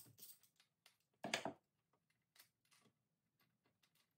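A few small metallic clicks from a hand tool being worked on the top of the engine cylinder, with one sharper clack about a second and a half in. Otherwise near silence.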